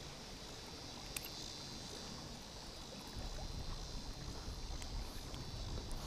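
Faint, steady rush of a shallow creek running over gravel, with a small click about a second in and a little low wind rumble in the second half.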